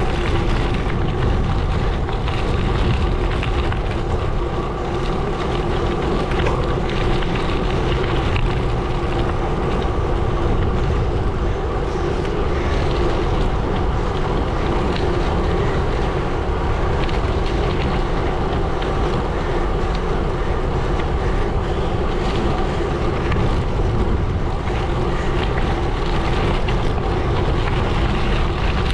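Gravel bike tyres rolling over a gravel road, a steady unbroken crunching rumble, with wind on the microphone.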